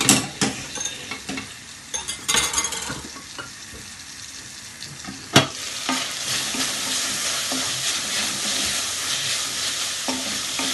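A few light metal clinks and knocks of cookware, then a sharp knock about five seconds in as the lid comes off. After that, bacon sizzles steadily as it fries in a large pan, stirred with a wooden spoon.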